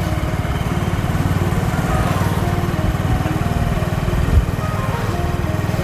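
Small engine of a moving road vehicle running steadily, a dense low pulsing drone, with one louder thump about four seconds in.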